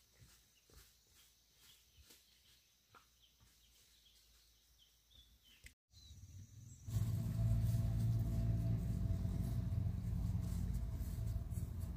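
Faint, evenly spaced steps with a few bird chirps. After a sudden cut about six seconds in, a motor engine runs steadily with a low hum, much louder than what came before.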